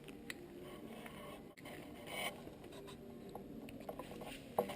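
Faint small clicks and scrapes of hands fitting the spark plug on a mini bike's engine.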